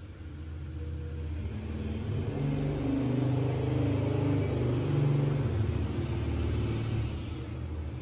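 A motor vehicle's engine rumbling, swelling louder over the first few seconds and easing off again toward the end, as if passing by.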